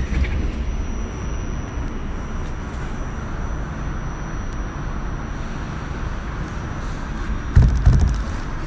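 Inside an R46 subway car: a steady low rumble and hum with a faint high whine, then a few loud clunks near the end as the train gets moving.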